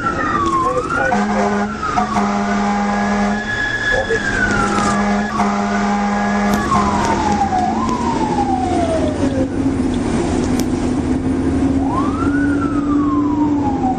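Fire engine siren winding up and falling again over and over, the pitch rising quickly and sliding down more slowly. A steady low tone sounds beneath it for much of the time.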